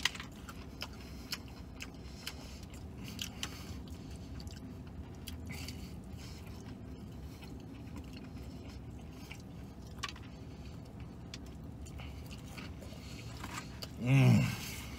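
A man biting and chewing fried fast food (chicken fingers and fries) close to the microphone, with scattered small wet mouth clicks over a low steady hum. A short vocal sound comes near the end.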